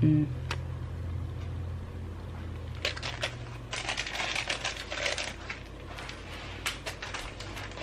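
Crackling and rustling of a plastic bag of tamarind souring being handled, a quick run of clicks lasting about four and a half seconds from about three seconds in. A low hum fades out in the first couple of seconds.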